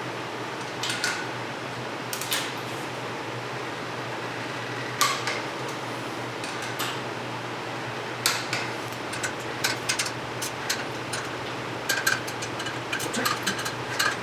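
Torque wrench tightening steel sprocket nuts: sharp metallic clicks, spaced out at first and coming in quick runs near the end, over a steady low hum.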